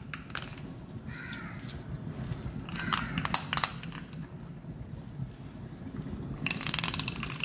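Crows cawing, several harsh calls with the longest near the end, over a low room hum.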